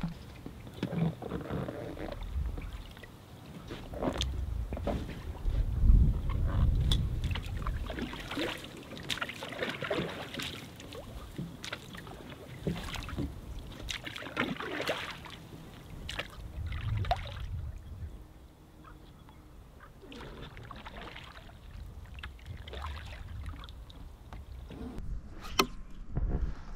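Water sloshing and splashing around a small inflatable boat as it is launched and moved out onto a lake, with irregular knocks and handling bumps.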